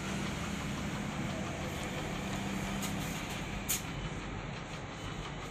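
Steady background rumble with a low hum, and a single short click about four seconds in.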